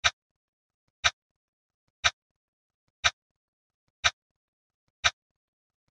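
Countdown timer's tick sound effect: one short, sharp tick each second, six in a row, with silence between.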